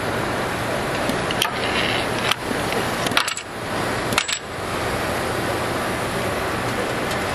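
Steady hiss and hum of a running CNC centerless grinder and its autoloader, with several short metallic clinks, the sharpest about three seconds in.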